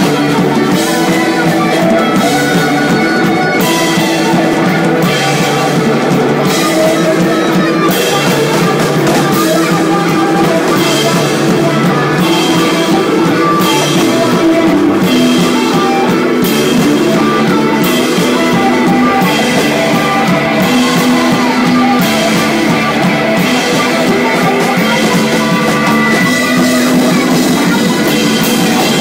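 Live rock band playing loud and steady, the drum kit driving it with snare and cymbal hits over guitar and a moving bass line.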